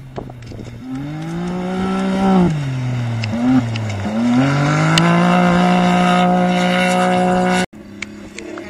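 Side-by-side rally buggy's engine accelerating hard: revs climb, drop briefly about two and a half seconds in with a quick blip, then climb again and hold high and steady. The sound cuts off suddenly near the end, replaced by a quieter engine.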